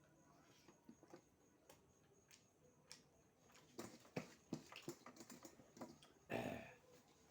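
Close-up mukbang eating sounds: a run of sharp mouth clicks and chewing noises about halfway through, with one louder, longer noisy burst near the end.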